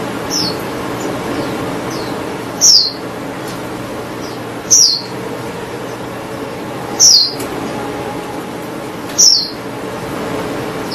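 A songbird repeating a short, loud, downward-sliding chirp about every two seconds, with fainter chirps in between, over a steady background hiss.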